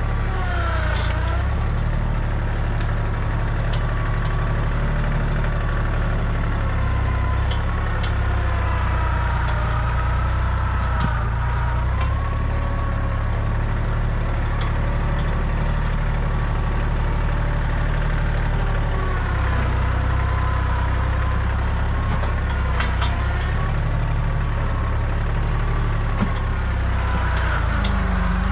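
Kubota compact tractor's diesel engine running steadily while working, its higher tones wavering slightly as the load changes, with a few short sharp clicks.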